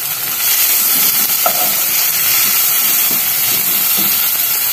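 Onion, tomato, pepper and olive sofrito sizzling and steaming in a nonstick pan as a wooden spoon stirs it; the sizzle grows a little louder about half a second in.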